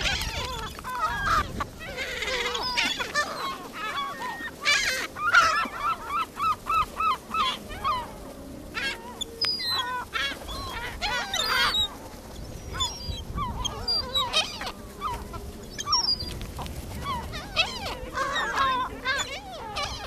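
A flock of gulls calling over and over: harsh, repeated squawks, with a quick run of about ten calls around six to seven seconds in.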